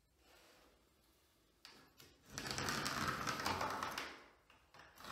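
A pencil scratching along the edge of a level across a textured drywall ceiling. A faint scratch comes first, then a louder, grainy rasp lasting nearly two seconds in the middle.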